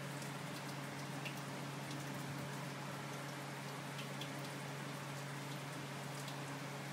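Raw mango and green chilli pickle sizzling gently in oil in an aluminium karahi: a steady crackling hiss with faint scattered pops, over a steady low hum.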